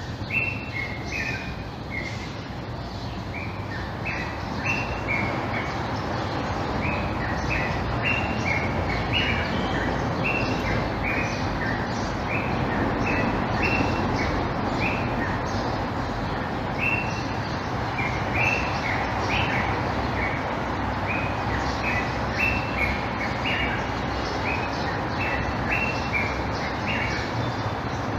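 Common (Egyptian) bulbul calling: short, clear notes in quick little groups, repeated over and over, over a steady background hum.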